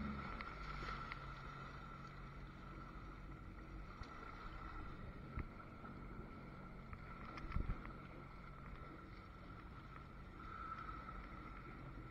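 Jet ski engine idling low and muffled, with a steady whine over it, as the craft bobs on choppy water. A couple of brief knocks come about halfway through.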